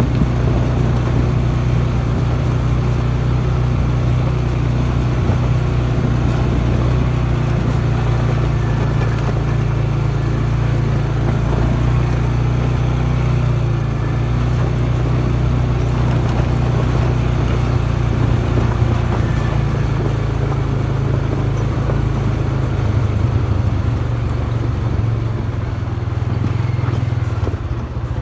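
Dirt bike engine running at low, steady revs as it rolls down a trail. The engine note turns rougher and more pulsing in the last few seconds.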